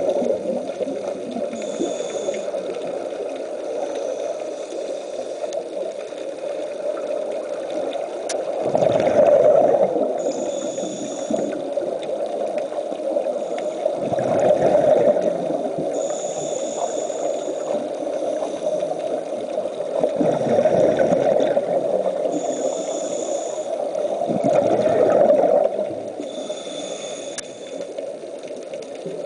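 Scuba diver breathing through a regulator underwater: a short hiss on each inhale and a gurgling rush of exhaled bubbles, repeating about every six seconds over a constant underwater rush.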